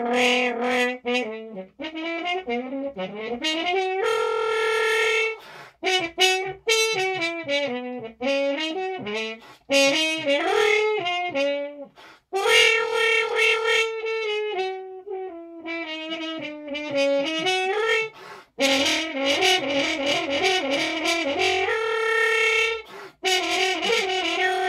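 French horn played with a stop mute: a solo blues melody in short phrases with brief breaks between them, including runs of quick notes.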